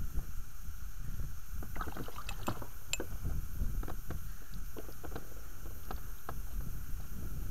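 Steady low wind rumble on the microphone, with a cluster of light clicks and knocks about two to three seconds in and a few more near six seconds, as a bream is lifted out of the water on a hand line and handled in an inflatable boat.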